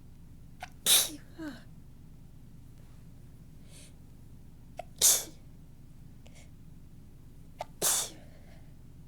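A woman sneezing three times, soft, tickly sneezes a few seconds apart, each one preceded by a quick sharp catch of breath.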